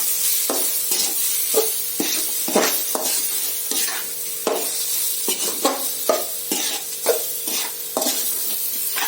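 Soaked semolina sizzling in hot oil in a kadai while it is stirred continuously, the utensil scraping the pan about twice a second.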